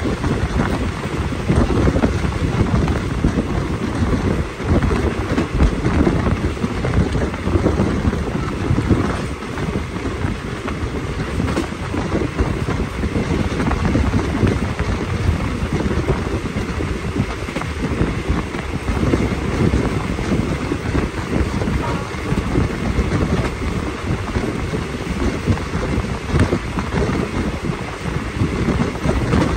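Steady rumble of a passenger train carriage running along the track, with wind buffeting the microphone at the open window.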